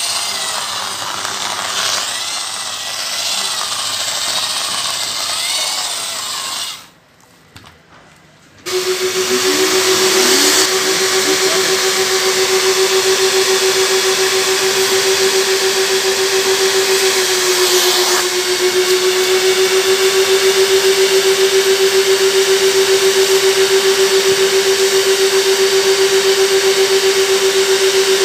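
A power drill spins a brush pad that scrubs sofa upholstery. After a short drop in sound about seven seconds in, a wet extraction vacuum's motor runs with a steady hum while its wand draws water out of the fabric.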